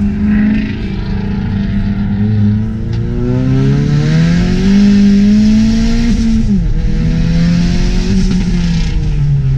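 Car engine and exhaust accelerating hard, the revs climbing through a gear. About two-thirds of the way in the pitch drops quickly at a gear change, then the engine pulls steadily again.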